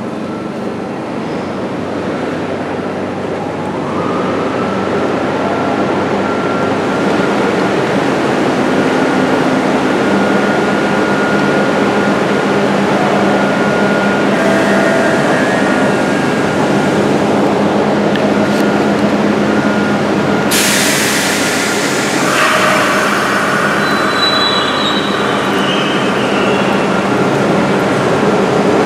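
MBTA Orange Line subway train rumbling in the underground station, growing louder, with a steady wheel squeal from a few seconds in. About two-thirds through, a sudden loud hiss cuts in for a couple of seconds, followed by more squealing as the train passes.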